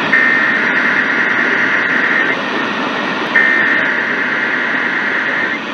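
Weather radio receiver sending two SAME digital header bursts, each about two seconds of a harsh, rapidly warbling two-tone data buzz, a second apart, over steady radio static: the coded header that opens a NOAA Weather Radio Required Weekly Test.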